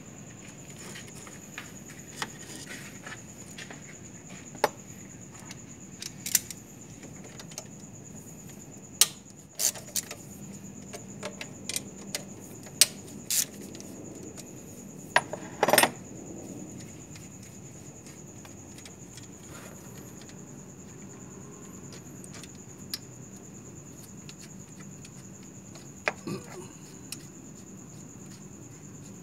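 Hand tools and metal parts clinking and tapping: a dozen or so irregular sharp clicks and knocks, the loudest a quick pair about 15 to 16 seconds in.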